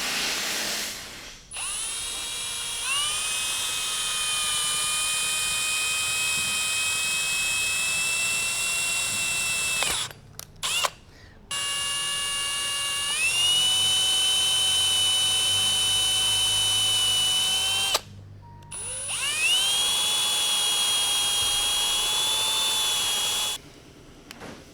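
Small power drill whining as it drills into the crimped metal fitting of a hydraulic lock actuator, to free the hydraulic lines. After a short burst it runs three times for several seconds each, with short stops between, its pitch rising each time it spins up.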